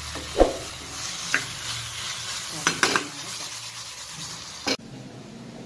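Prawns sizzling as they fry in curry masala in a pan, stirred with a metal spoon that scrapes and knocks against the pan several times. The sizzling cuts off suddenly near the end.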